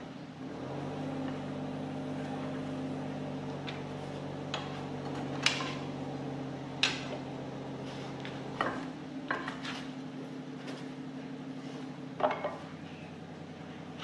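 A steel pry bar and rubber track clanking against the steel undercarriage of a John Deere CT322 track loader as the track is levered onto its idlers: about half a dozen sharp metal clanks over a steady hum.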